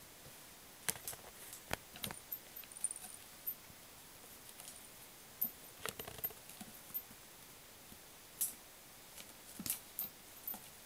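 Scattered light taps and scuffles of a kitten pouncing and scrambling while playing with a cat teaser wand, at irregular intervals, the loudest a little over halfway through.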